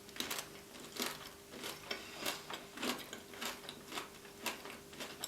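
Close-miked chewing of a chicken taco in a hard taco shell, with a steady run of crisp crunches about two or three a second.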